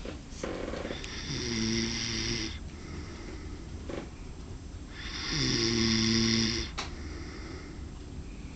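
A sleeping man snoring: two long snores about four seconds apart, each lasting about a second and a half, over a steady low hum.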